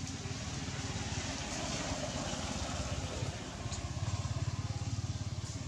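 Motor vehicle engine running steadily, a low rumble of fast, even pulses that grows a little stronger near the end.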